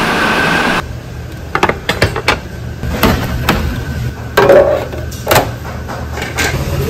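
Kitchen dishes and metal utensils clattering: scattered sharp clinks and knocks, the loudest about four and a half and five and a half seconds in, over a steady low hum. A short rushing noise fills the first second.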